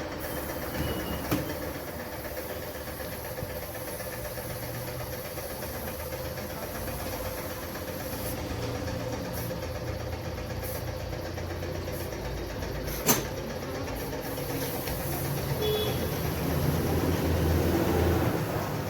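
A vehicle engine running steadily, a low rumble with a constant hum. A sharp knock sounds once, about thirteen seconds in.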